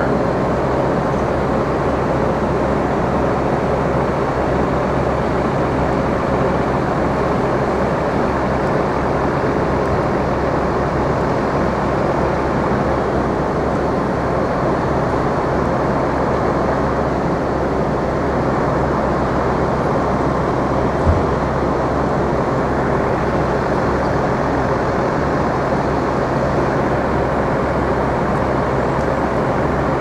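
Steady city street noise, a continuous even roar of traffic, with one brief low thump about two-thirds of the way through.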